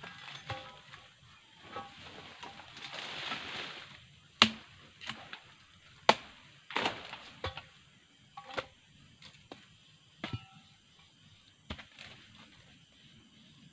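A series of sharp chopping strikes of a harvesting blade into a low oil palm, coming irregularly a second or so apart, the hardest about four and six seconds in. A short rustle sounds near three seconds.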